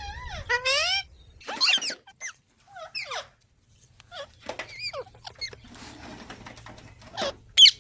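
Green parrots squawking and screeching in short calls that bend up and down, with a loud shrill screech near the end. These are the calls of parrots squabbling with each other.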